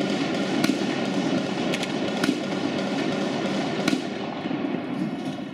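Gunfire during a firefight: a dense, continuous crackle of shots, with several sharper, louder single shots standing out.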